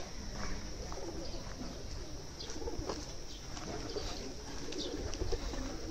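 Birds cooing faintly over a steady outdoor background hiss, with a few light ticks.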